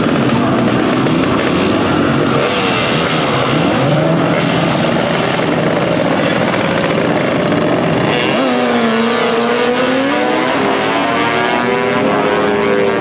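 Turbocharged Suzuki Hayabusa inline-four drag bike and a second motorcycle revving at the start line, then launching about eight seconds in, the engine pitch climbing as they pull away down the strip.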